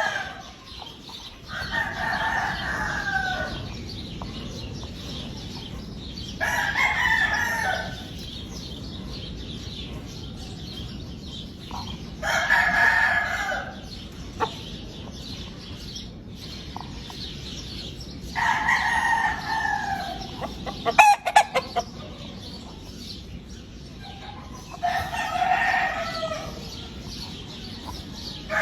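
Gamefowl roosters crowing, about five crows spaced several seconds apart. A short burst of sharp clicks comes about three-quarters of the way through.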